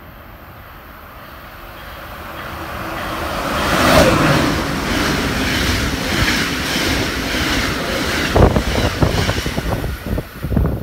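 An Amtrak passenger train passing through the station at speed. It builds from a distant rumble to its loudest as the locomotive goes by about four seconds in, then gives a steady rush and rumble of coaches, with a run of wheel clacks over the rail joints near the end as the last cars pass.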